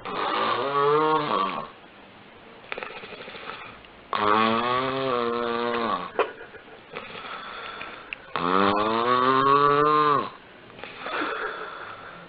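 A sleeper snoring loudly: three long snores about four seconds apart, each a drawn-out tone that falls in pitch, with quieter rasping breaths between.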